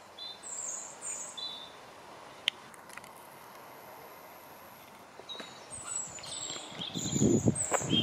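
Small birds chirping in short, high, quick phrases, once near the start and again from about five seconds in. In the last second or two a louder, uneven low rumble comes in under the calls.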